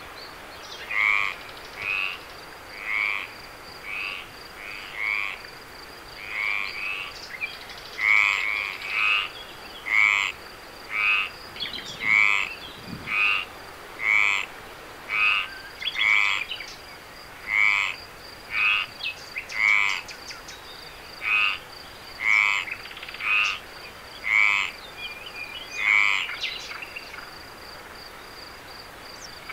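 Frogs croaking: a pulsed, rasping call of about half a second, repeated roughly once a second and stopping a few seconds before the end. A steady high-pitched tone runs underneath.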